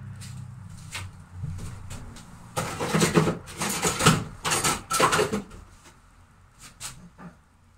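A low engine-like rumble fades out over the first two seconds; then a run of loud knocks and rustles, about two a second, as someone moves about and steps on the floor inside a caravan shell, followed by a few faint clicks.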